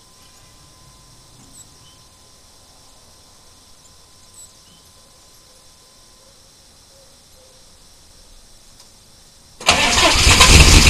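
Mostly quiet, with a faint steady tone that stops about six seconds in. Near the end, the 1993 Chevy's 6.5L turbo diesel cranks and fires all at once and runs loud: a cold start without the block heater.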